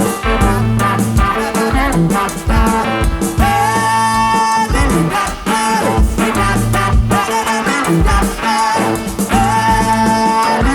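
Upbeat background music with a steady beat, bass and guitar, and a voice singing held notes.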